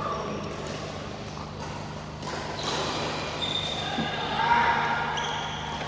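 Badminton rally: rackets strike the shuttlecock with several sharp hits, one with an overhead swing about four seconds in. Shoes squeak briefly on the court surface, and the sound echoes in a large hall.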